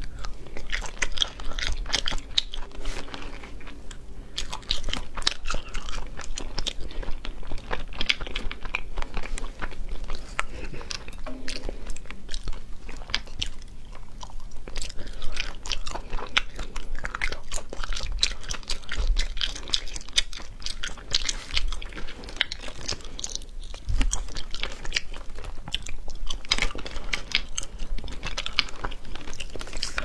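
Close-miked eating of sea snail meat: wet chewing and biting, with a dense patter of small mouth clicks and smacks.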